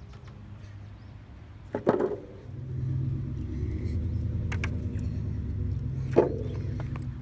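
Two sharp thuds with a brief ring, about two seconds in and again near the end, as feet land on a spring-mounted balance board. A steady low rumble sets in just after the first thud and carries on.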